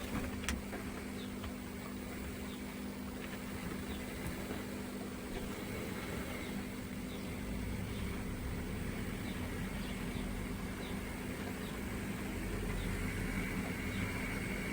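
N-scale model diesel locomotive running on the layout: a low steady hum with faint light clicks every second or so.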